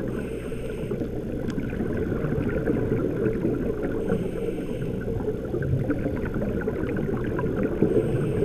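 Underwater ambience picked up through a camera's waterproof housing: a steady low rumble with scattered faint crackling, and a short hiss about every four seconds from a scuba regulator.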